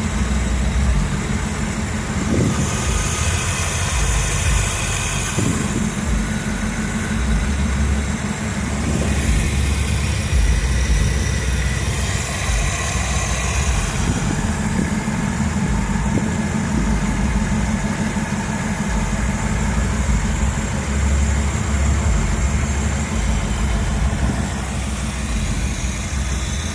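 Carbureted car engine idling steadily.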